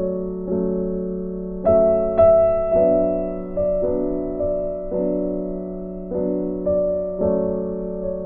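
Gentle piano music: sustained chords and notes struck about once a second, with a louder chord about two seconds in.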